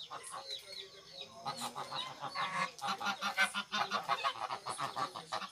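Domestic geese honking, many short overlapping calls making a racket, sparse at first and busier after about a second and a half.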